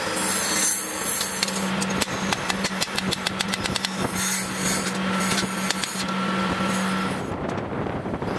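Metalworking in a workshop: a steady machine hum under bursts of grinding or scraping noise, with a quick run of sharp, evenly spaced clicks a couple of seconds in.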